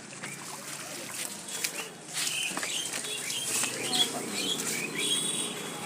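Small birds chirping and twittering, many short calls overlapping, busiest from about two seconds in, with a few light clicks among them.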